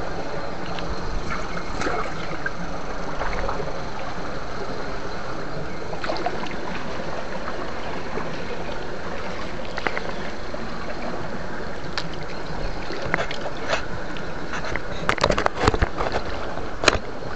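Water sloshing and gurgling, a steady churn, with a run of sharp clicks and knocks near the end.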